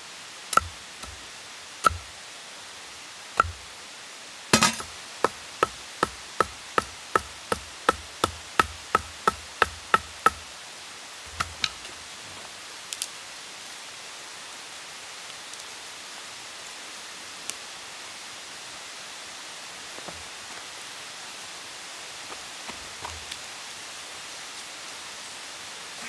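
A knife blade chopping at the end of a wooden stick laid on a log, cutting it to a point: three separate knocks, then a quick even run of about fifteen chops, roughly two and a half a second, that stops about ten seconds in, with a few more knocks after. Then only a faint steady hiss.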